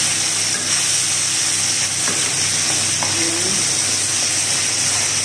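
Floured chicken pieces sizzling steadily in hot oil in a frying pan, with metal tongs turning them and a couple of light clicks.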